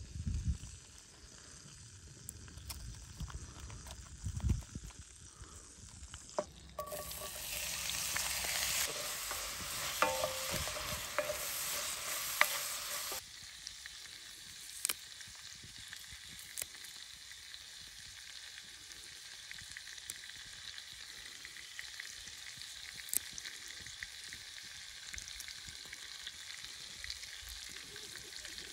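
A sizzling, frying-type hiss. It is harsher and louder for about six seconds in the middle, then drops suddenly to a steadier hiss with occasional sharp crackles and ticks. In the opening seconds, before the hiss rises, there are soft crinkly ticks as foil is peeled off baked bread.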